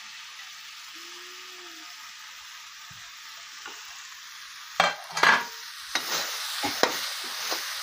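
Diced boiled potatoes sizzling in hot oil and masala in a metal kadai, a steady hiss. About five seconds in, a flat metal spatula starts scraping and stirring the pan in several sharp strokes.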